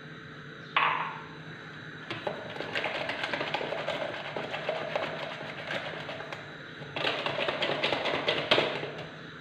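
Wire whisk beating eggs and sugar in a plastic measuring jug: fast, rattling clicks of the wires against the jug. It starts about two seconds in, after a single knock, and gets louder near the end.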